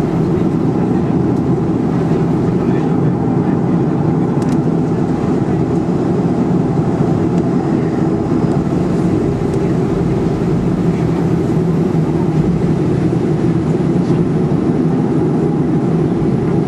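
Cabin noise of a Boeing 737-400 taxiing, heard from a window seat over the wing: its CFM56 engines idle with a steady low drone and hum that stays even throughout.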